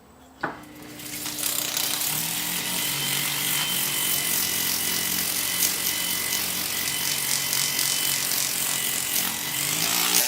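Small electric power tool clicking on, spinning up over about a second and then running steadily at an even pitch, with a hiss over the motor tone.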